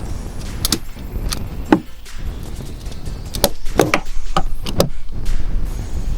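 Irregular metallic clicks and knocks of a socket wrench and tools working on the fuel tank bolts, over a low rumble.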